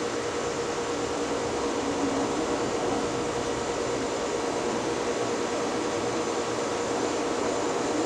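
Southern Fan Co. Tara ceiling fan running steadily, a constant hum over an even rush of noise.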